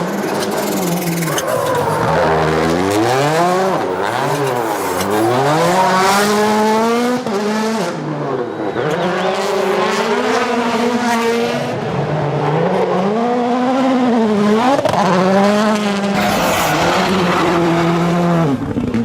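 Rally car engines revving hard at full attack, their pitch repeatedly climbing and falling back as the drivers shift gears and lift off the throttle.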